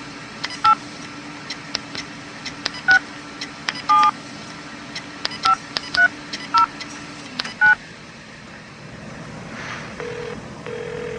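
A touch-tone telephone being dialled: a string of short keypad beeps at uneven intervals, one held a little longer, ending about eight seconds in. Near the end the line gives a steady ringing tone as the call rings through.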